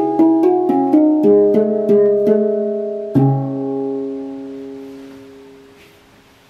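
Handpan tuned to C# minor struck with the hands: a quick run of ringing notes, about three a second, then a last strike with a low note a little after three seconds in, left to ring and fade away.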